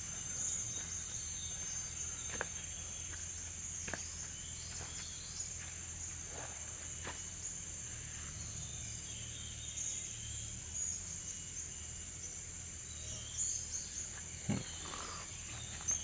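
Steady high drone of insects, with short, thin, high chirps scattered through it from blue-crowned hanging parrots calling on and off.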